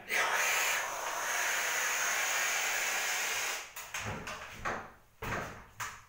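Handheld steam cleaner hissing as it jets steam onto a plaster wall to soften old calsomine paint; the hiss starts abruptly and runs steadily, then breaks off and comes back several times in the last couple of seconds, with a few low dull bumps.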